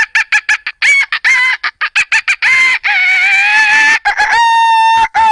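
A man imitating a chicken with his voice: a fast run of short clucks, about five a second, then long drawn-out calls, the last one falling in pitch near the end.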